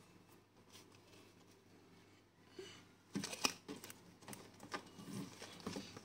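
Faint handling noise of a pop-up picture book: paper and plastic wrap rustling, with a cluster of light clicks and taps in the second half.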